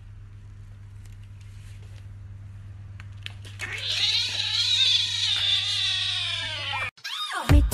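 Kitten giving one long, drawn-out meow that starts about three and a half seconds in, slides slowly down in pitch and cuts off suddenly, over a low steady hum.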